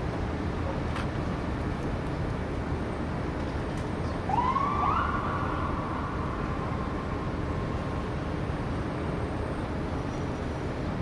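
Steady low rumble of city traffic, with a single siren wail about four seconds in that rises quickly, holds and fades away over a few seconds.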